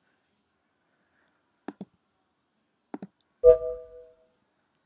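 Two soft clicks, then a short chime from a Mac computer: a few steady notes over a low thump, fading out within about a second as the Automator workflow finishes.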